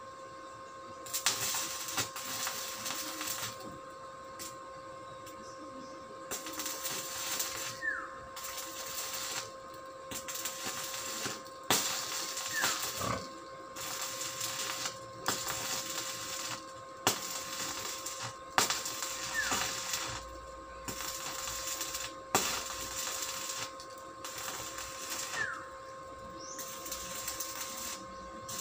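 Hand work on a steel gate post: repeated bursts of rasping, scraping noise, each a second or two long with short pauses, broken by sharp metallic clicks.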